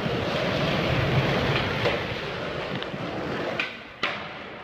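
Skateboard wheels rolling on smooth concrete, a steady noise, with a few sharp clacks of the board, the sharpest about four seconds in.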